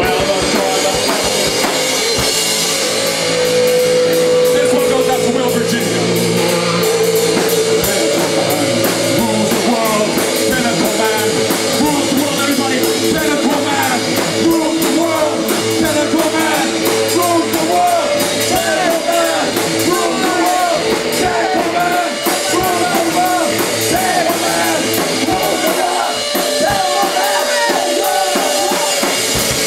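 Rock band playing live, loud and steady: drum kit and guitars, with some singing.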